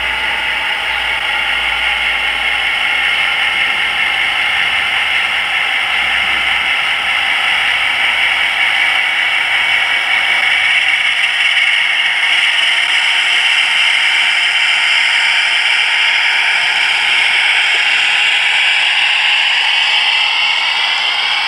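DCC sound-equipped model diesel locomotive, its small onboard speaker playing a running diesel engine under way, mixed with the hiss and clatter of the model coaches rolling over the track. Some of the engine tones slide in pitch near the end.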